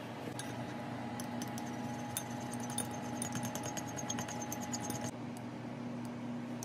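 Wooden chopsticks beating eggs in a ceramic bowl, clicking rapidly against the bowl's side and stopping suddenly about five seconds in. A steady low hum sits underneath.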